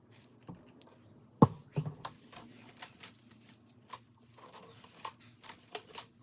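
Hands handling and wiping a plastic MacBook bezel during cleaning: scattered clicks and short rubbing sounds, with a sharp knock about a second and a half in.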